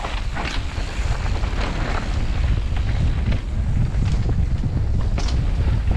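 Wind buffeting the microphone: a heavy, uneven low rumble, with a few brief light knocks or crackles scattered through it.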